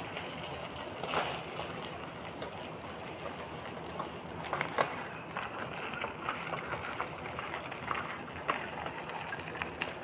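Mountain bike ridden over a packed dirt road, with scattered clicks and knocks from the bike and tyres over a steady background noise.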